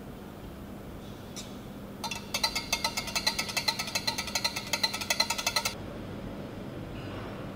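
A spatula stirring fast in a glass jar of liquid soap to mix in the essential oil, knocking against the glass in a quick even rattle of about eight knocks a second for a few seconds, then stopping abruptly.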